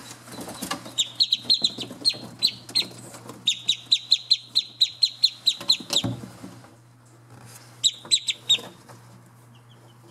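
Australian shelduck ducklings peeping: runs of short, high calls at about four a second, thinning out to faint cheeps near the end. A low steady hum runs underneath.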